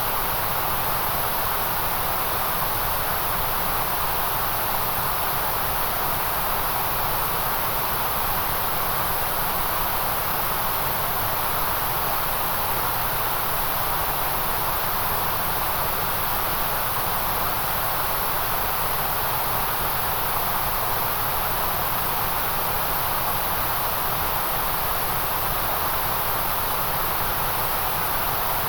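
Steady, unchanging white-noise hiss, strongest in a mid-pitched band and a bright high band.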